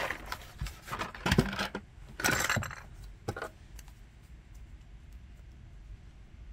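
Wires and a twist-on wire connector being handled in a steel electrical box: a few sharp clicks and a short scraping rattle over the first three seconds or so.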